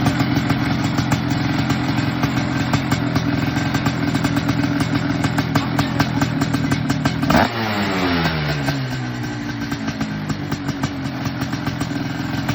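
Small go-kart engine running steadily under a scatter of clattering ticks; about seven seconds in there is a sharp crack and the engine pitch falls over a second or so, settling lower as the kart slows.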